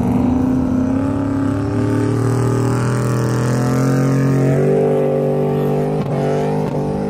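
Chevrolet Silverado pickup engine working hard as the truck climbs a steep sand dune, a loud steady drone whose pitch steps up about halfway through.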